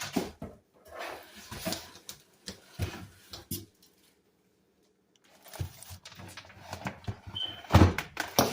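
Irregular clicks, knocks and rustling from objects being handled, broken by about a second of dead silence in the middle. There is a brief high beep about seven seconds in and a heavy thump just before the end.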